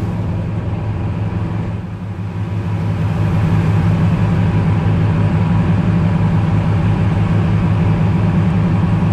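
Fishing boat's inboard engine running steadily, heard from on deck, with a deep, even drone. The level dips briefly about two seconds in, then runs louder.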